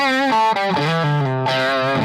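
PRS S2 Custom 24 electric guitar playing a quick phrase of notes, some with string bends and vibrato.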